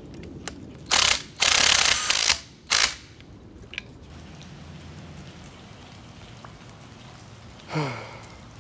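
Cordless impact wrench rattling as it runs a strut's top nut down tight, in three short bursts about a second in, the middle one the longest.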